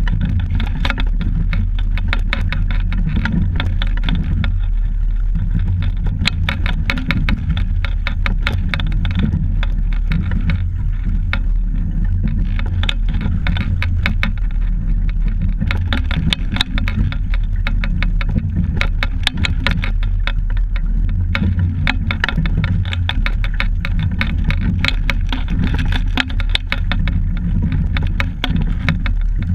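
Steady low rumble of wind and water on a camera fixed to a rowing double scull under way, with quick clicking and rattling throughout.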